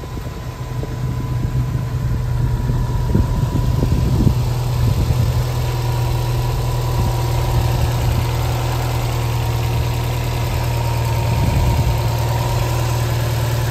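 Subaru WRX STI's EJ20 turbocharged flat-four engine idling steadily with the bonnet open.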